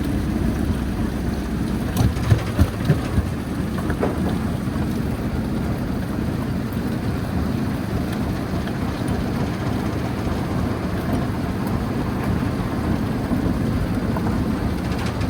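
Jaw crusher running with a steady heavy rumbling grind, and a quick run of four or five loud knocks about two seconds in.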